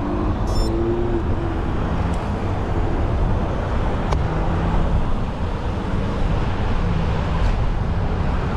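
Steady road traffic noise with cars passing, a continuous low rumble heard over the rush of a bicycle ride.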